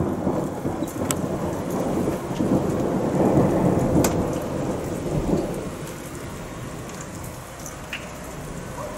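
Thunder rumbling, loudest about three to four seconds in, then dying away, leaving the steady hiss of heavy rain.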